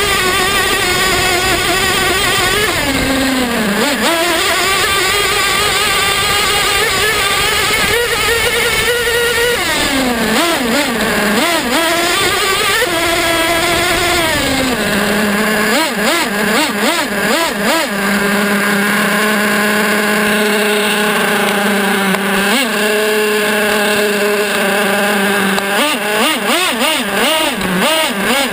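Two-stroke nitro engine of a Traxxas T-Maxx RC truck, heard close up from the onboard camera, revving up and down several times, then holding a steady high pitch for about ten seconds before quick blips of throttle near the end.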